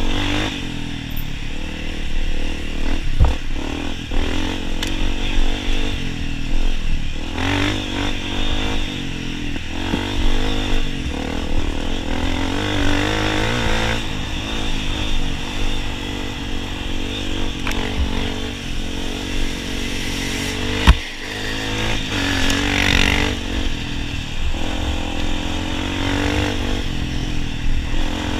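Honda CRF250F's single-cylinder four-stroke engine running as the dirt bike is ridden hard on a trail, its pitch rising and falling with the throttle, with clatter and a few sharp knocks from the bike over rough ground, the loudest about three-quarters of the way through.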